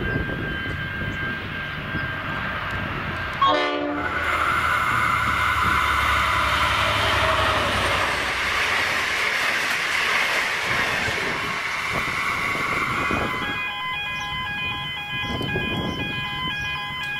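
V/Line N class diesel-hauled passenger train passing at speed: a short sharp horn-like blast as it reaches the platform, then the deep hum of the locomotive's diesel engine and the rush and rumble of the carriages going by. Near the end a steady electronic warning tone sounds at several pitches.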